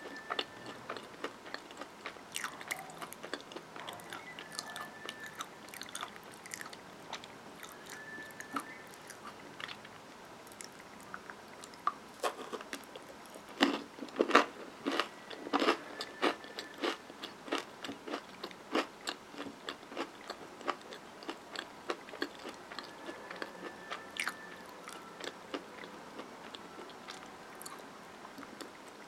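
Chewing and crunching a Hershey's Take 5 bar, its chocolate-coated pretzel, peanut and caramel layers crackling between the teeth in many short crunches. The crunching is loudest for a couple of seconds about halfway through.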